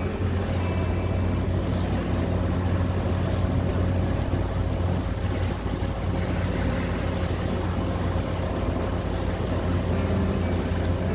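Small boat's motor running steadily under way, a constant low hum, with wind and water noise.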